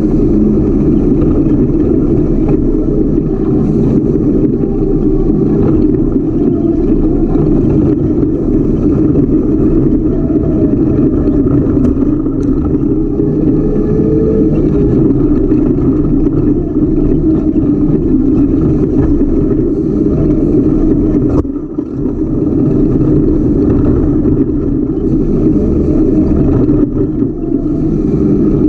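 Ultra4 off-road race car's engine running hard under load on the move. It is loud and steady, easing briefly about three-quarters of the way through.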